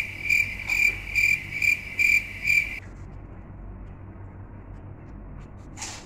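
Cricket-chirp sound effect, the stock cue for an awkward silence: even chirps about two and a half times a second, which stop abruptly about three seconds in. After it there is only faint room noise and a short rustle near the end.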